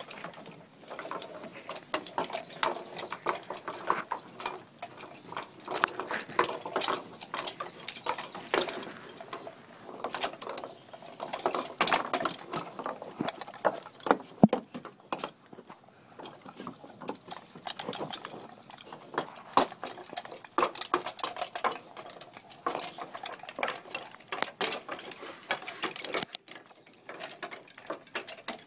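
Wooden dog marionette clattering on wooden deck boards, its jointed wooden legs and feet knocking and tapping in quick, irregular clicks as it is worked on its strings.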